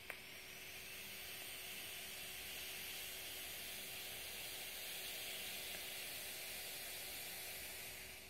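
Steady hiss and sizzle of a dripping atomizer's dual Kanthal coil at 0.42 ohms firing through one long drag of about eight seconds, with air drawn through it. A sharp click at the start; the hiss cuts off just before the end.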